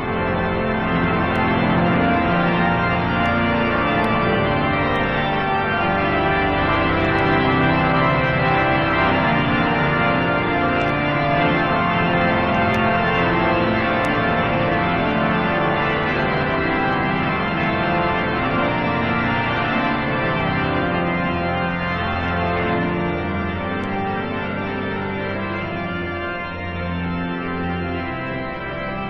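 Organ playing slow, sustained chords that change every second or so, heard through an old recording with no treble.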